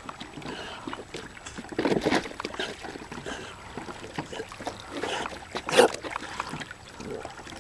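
Uneven water sloshing and lapping from a black retriever swimming with a retrieving dummy in its mouth, with a brief louder sudden sound about six seconds in.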